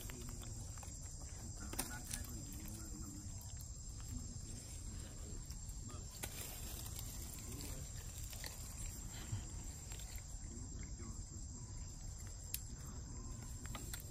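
Forest ambience: a steady, thin high insect drone, with faint soft monkey calls in the first few seconds and a few small clicks.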